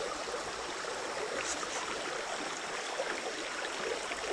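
Small spring creek running and trickling steadily.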